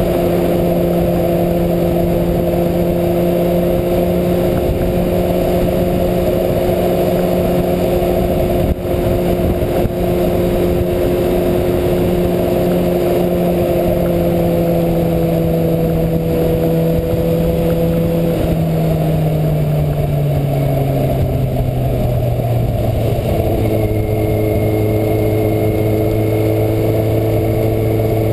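2009 Kawasaki ZX-6R's inline-four engine running at steady revs under heavy wind noise on the bike-mounted camera. About two-thirds of the way through, the revs fall away smoothly over several seconds and settle lower as the throttle is rolled off.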